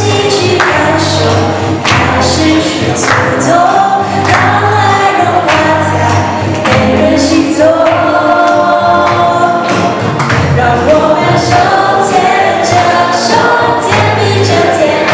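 A mixed group of young men and women singing a gospel song together into handheld microphones, amplified, over a backing track with a steady beat and bass.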